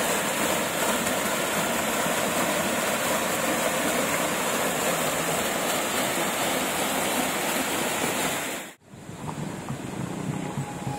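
Small mountain waterfall rushing down a rock face: a steady, even rush of falling water. It cuts off abruptly about nine seconds in, and quieter background music follows.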